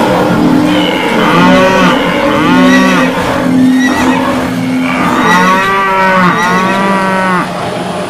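Cattle mooing, several long calls overlapping one another, over a continuous noisy rumble.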